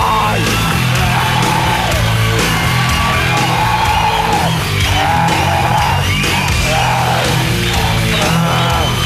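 Loud heavy rock music with a steady driving beat.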